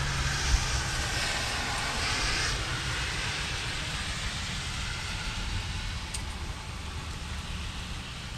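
Steady rain falling, an even hiss, with a single low thump about half a second in.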